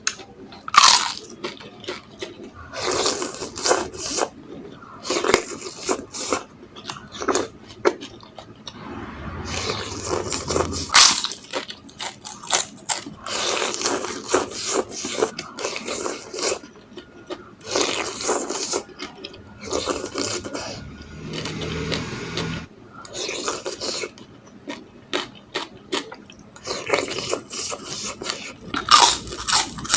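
Close-up eating sounds of chili-filled meatballs in broth: a spoon scraping the bowl, broth slurped and the meatballs chewed, in irregular bursts with short pauses.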